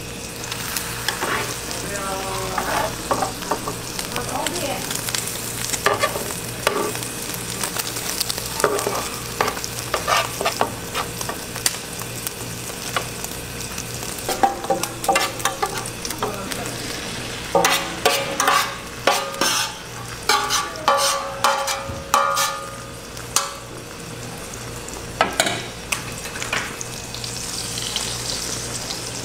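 Beaten egg sizzling in a large rectangular pan while plastic spatulas scrape and knock against the pan, rolling a giant omelette. The clacks and scrapes come thickest a little past the middle.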